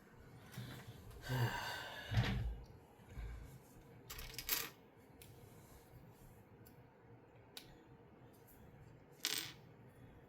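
Small plastic Lego pieces clattering and clicking as they are handled and dropped on a surface, in separate short rattles with a few faint clicks between them.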